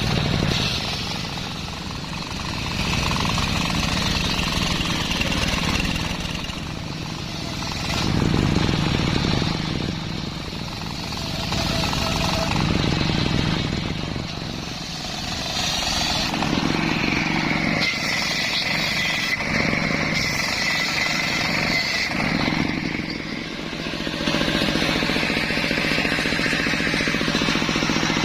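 Homemade circular saw rig running and cutting a waru log in repeated passes. The sound swells and eases every few seconds over a steady low machine hum. A high steady whine comes in for a few seconds past the middle.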